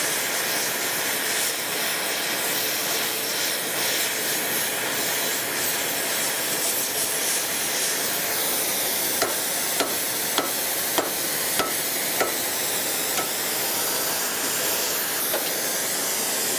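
Oxy-fuel torch flame running with a steady loud hiss as it heats a small steel piece for bending, cutting off abruptly at the very end when the torch is shut. In the middle, a run of about seven sharp, ringing metallic taps roughly half a second apart, a hammer striking the heated steel.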